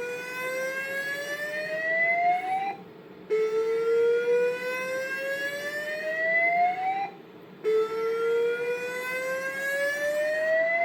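Fire alarm evacuation tone from a Cerberus Pyrotronics MXL-V voice alarm system: a whoop that rises steadily in pitch for about four seconds, then breaks off briefly and starts again, repeating through the alarm.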